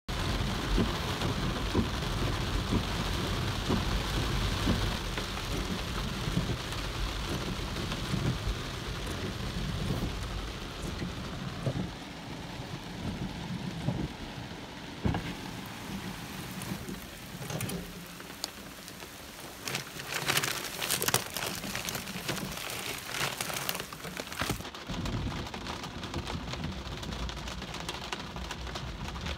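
Heavy rain drumming on a Tesla Model 3's glass roof and windows, heard from inside the cabin, with a low rumble of thunder through roughly the first ten seconds.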